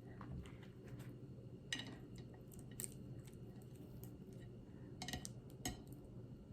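Faint handling of a sandwich and tableware: soft squishy movements with a few sharp clicks, the clearest about two, three and five seconds in.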